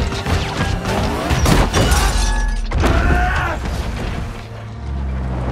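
Film soundtrack: music under a rapid series of heavy crashes and impacts as a giant metal robot tumbles and slams into the ground. Sliding, whirring pitches come in around the middle, and a steady low rumble takes over near the end.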